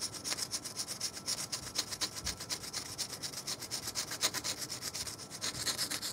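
A small oiled sharpening stone rubbed by hand in quick short strokes along the cutting tip of a lathe boring bar, honing its edge and nose radius sharp again. It makes a steady scratchy rubbing, several strokes a second.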